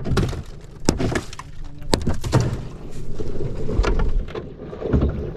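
A stone pounding a block of ice to break it up over anchovies in a wooden fish box, in sharp cracking knocks about once a second. A low steady hum runs underneath.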